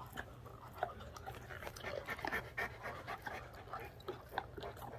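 Newfoundland dog panting and chewing on a tennis ball, with irregular wet mouth clicks throughout.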